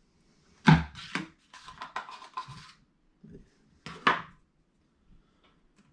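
A sharp knock, then a rattling scrape for about a second and a half, and another knock about four seconds in: a blade coffee grinder and its freshly ground coffee being handled as the grounds are knocked and scraped out into a cold brew filter.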